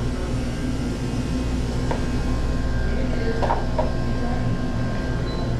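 Steady low mechanical hum of a convenience store's air handling and refrigerated coolers, with a couple of faint short sounds about two and three and a half seconds in.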